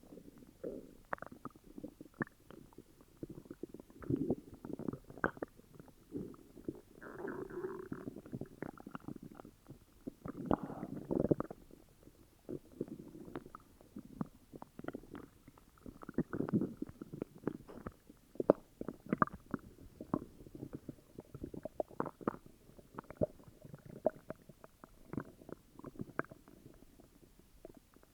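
Human stomach growling and gurgling from an upset stomach: irregular rumbles and bubbling squelches, with longer, louder gurgles about seven and eleven seconds in.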